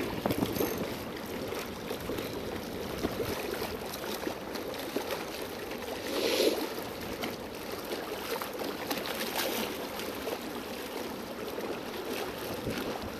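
Water washing and lapping at the shoreline, a steady rushing with a brief louder surge about six seconds in.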